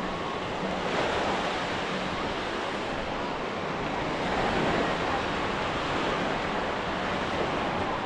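Ocean surf breaking and washing up the shore, a steady rush that swells a little about a second in and again around four to five seconds in.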